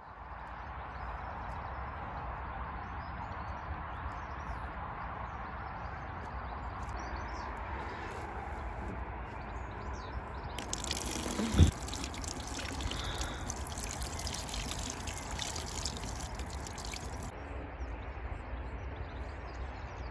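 Water running from the tap of a plastic rainwater butt for about six seconds past the middle, with a single sharp knock just after it starts. A steady outdoor hiss with a low rumble runs underneath.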